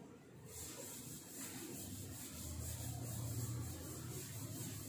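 Chalk being wiped off a blackboard with an eraser: faint, steady rubbing in quick, even back-and-forth strokes.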